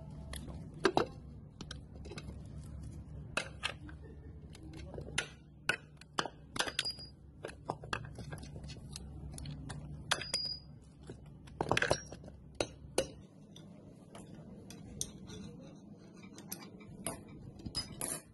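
Hammer and metal tools knocking and clinking irregularly against a metal air compressor casing as it is taken apart, over a low hum that drops away about two-thirds through.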